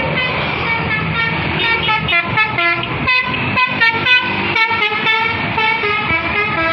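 Bus 'telolet' multi-tone horn (Basuri horn) playing its tune: held chords at first, then a quick run of short, changing notes, over the rumble of the bus engine and traffic.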